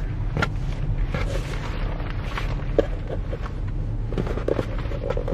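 Rustling and light taps of hands untying a frayed fabric ribbon and opening a white corrugated cardboard box, over a steady low rumble.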